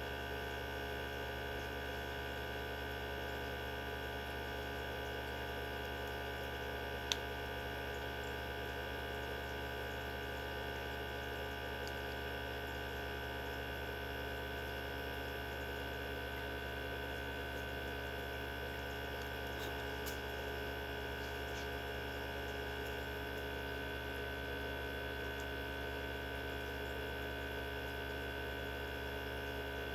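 Mini benchtop centrifuge running at a constant speed with tubes of cow blood: a steady motor hum with several fixed whining tones that never changes. A single small click about seven seconds in.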